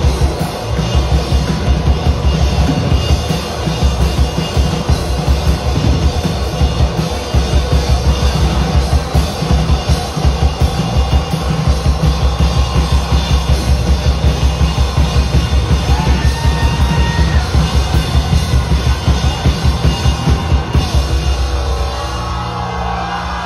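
Live indie rock band playing loud: a fast, driving drumbeat under electric guitar and bass guitar. Near the end the steady drumming drops out and the guitars ring on.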